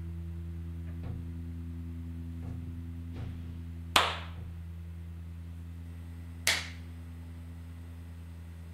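Two single hand claps about two and a half seconds apart, each sharp with a short ring of room echo, over a steady low hum. A few faint knocks come in the seconds before the first clap.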